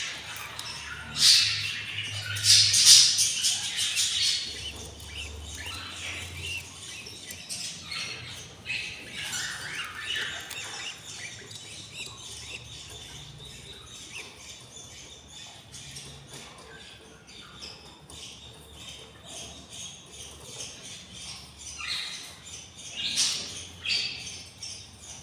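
Budgerigars calling in the nest: harsh squawks and chirps, loudest in bursts in the first few seconds and again near the end, with softer chattering in between.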